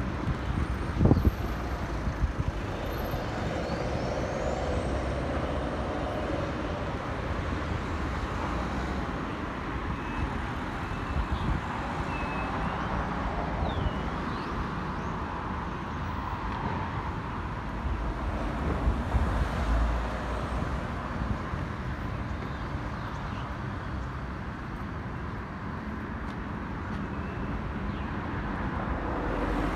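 Street traffic: a steady wash of passing cars and buses, with a few thumps of wind on the microphone in the first couple of seconds.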